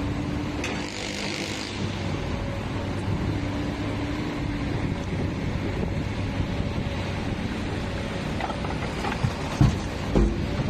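Komatsu backhoe's diesel engine running steadily, with two heavy low knocks near the end.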